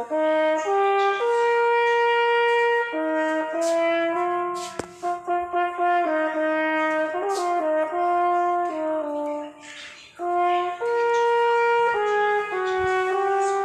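French horn playing a melody, one note at a time, with a mix of held and shorter notes and a brief break about ten seconds in.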